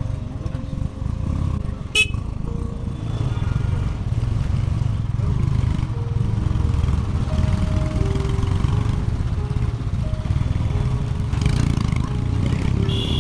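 A motorcycle riding along a road: a steady low rumble of engine and wind buffeting the microphone, with a short horn toot at the very end.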